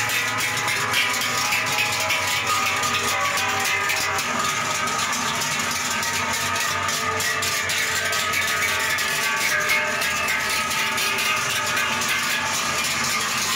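Many large cowbells on a passing cattle herd clanging together in a dense, continuous jangle, many ringing tones overlapping.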